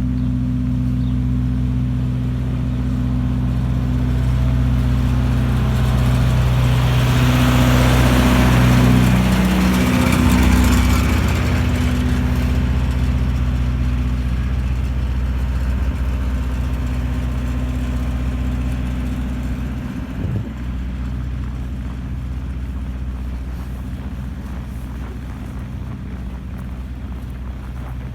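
A motor vehicle's engine runs with a steady low hum. A rush of noise swells and fades about a third of the way in, as of a vehicle passing.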